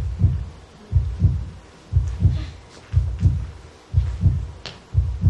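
Heartbeat sound effect: a steady low double thump, lub-dub, about one beat a second.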